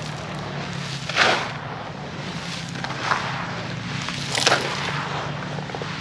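Hands crumbling and dropping a dry, gravelly concrete mix in a plastic basin: a constant gritty rustle with louder crunchy pours of falling grit about a second in and again past the middle, over a faint low steady hum.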